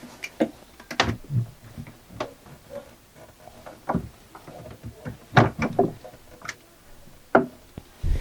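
Irregular knocks and clicks of tools and hardware being handled against wood, with a cluster of louder knocks about five seconds in and a single sharp knock near the end.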